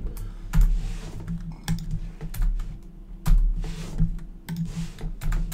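Typing on a computer keyboard: uneven runs of keystrokes, several a second, with a few louder key strikes.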